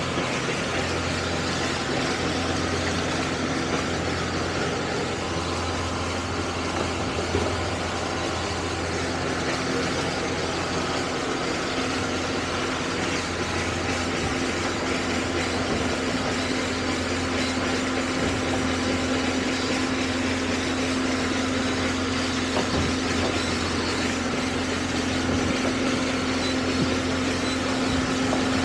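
Towboat's twin outboard motors running steadily, an even engine hum.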